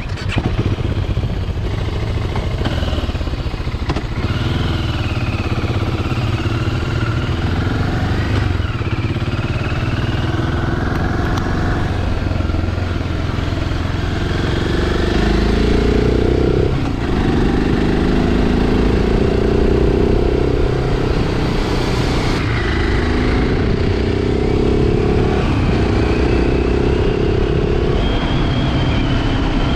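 BMW G650 Xcountry's single-cylinder engine running on the move. In the second half its pitch climbs and drops back sharply about four times as it shifts up through the gears.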